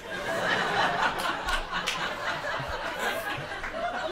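Audience laughing together in a club room: many people laughing and chuckling at once, holding steady through the pause before the next joke.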